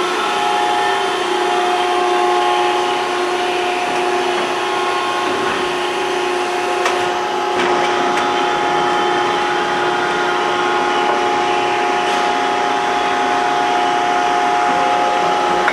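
Maren Model 72 baler's hydraulic power unit, a 15 hp three-phase electric motor driving the pump, running steadily under load with a steady whine while the ram goes through its automatic cycle. A short clack comes about seven seconds in.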